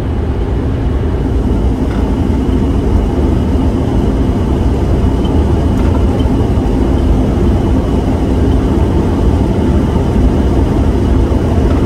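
Steady road noise inside a car's cabin at highway speed: tyre and engine drone, heaviest in the low end.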